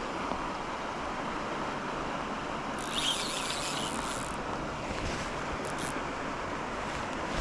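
Steady rush of river water, with a brief higher hiss about three seconds in.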